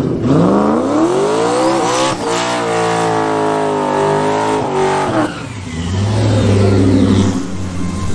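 Drag car's engine revving hard during a burnout at the starting line. The revs climb steeply, catch briefly about two seconds in, and are held high and steady. They drop at about five seconds to a lower, heavier drone as the car rolls through its tyre smoke.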